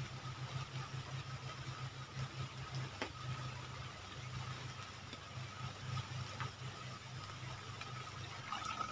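A small engine idling faintly, a low pulsing hum, with a thin steady high tone over it.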